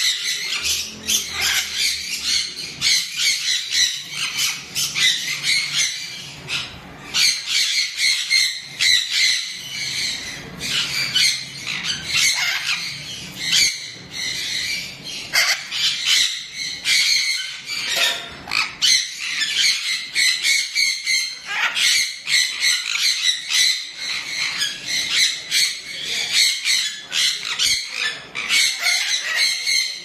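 Severe macaw squawking: a long, rapid run of short, harsh calls with only brief pauses.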